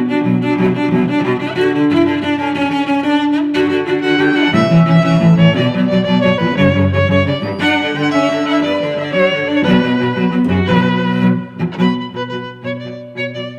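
Background music: bowed strings, violin and cello, playing sustained notes, thinning out and getting quieter near the end.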